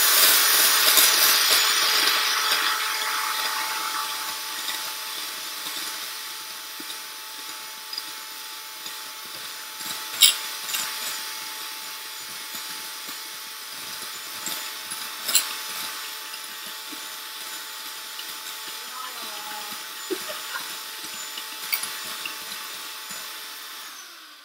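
Electric hand mixer running steadily with a whine, its beaters whipping egg whites in a bowl toward soft peaks. It is loudest for the first few seconds, then settles. Two sharp clicks come near the middle, and it cuts off at the very end.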